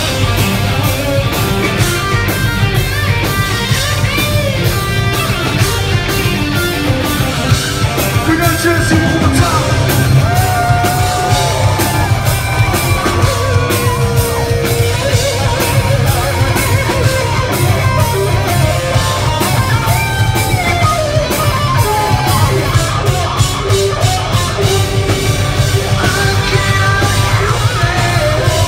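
Live hard rock band playing loud: distorted electric guitars, bass and drums, with a singer yelling over the top.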